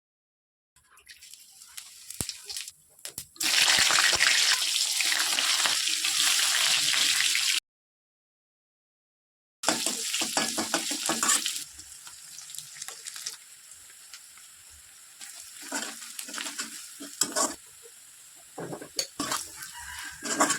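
Kitchen sounds of shrimp being prepared and cooked: a few seconds of loud steady hiss, a cut to silence for about two seconds, another burst of hiss, then quieter clinks and scrapes of stirring in a pan.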